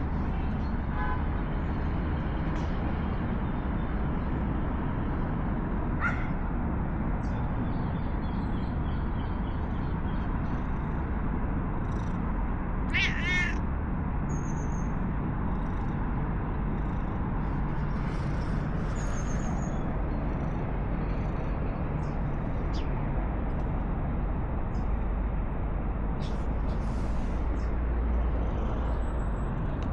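Stray cat meowing: one clear, drawn-out meow about halfway through and a couple of short calls earlier, over a steady low background rumble.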